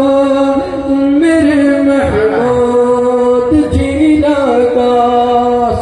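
A male voice singing a naat, holding long notes and stepping between pitches.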